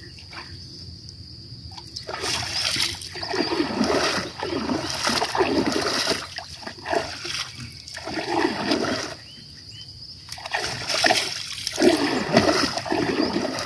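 Water splashing and sloshing around a small wooden boat in repeated swells every two to three seconds as it moves along and a gill net is paid out over the side.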